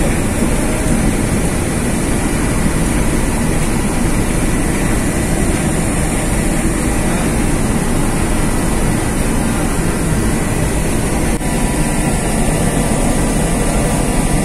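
Steady, loud rumble of a car ferry under way, heard on its open deck: the ship's engines mixed with wind on the microphone.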